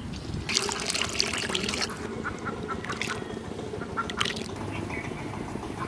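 Ducks quacking: a harsh run of calls for about a second and a half, then shorter calls twice more.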